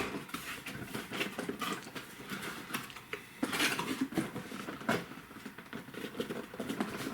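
Hands opening a toy's packaging: scattered clicks, taps and rustles, with a longer rustling scrape about three and a half seconds in.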